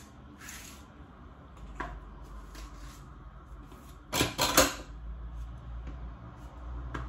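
Kitchen cutlery clatter as a knife is fetched: a few light knocks, then a short burst of clinking about four seconds in.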